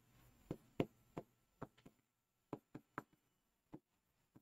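Faint, uneven taps and clicks of a pen tip striking a writing board as handwriting is put on it, a dozen or so short knocks.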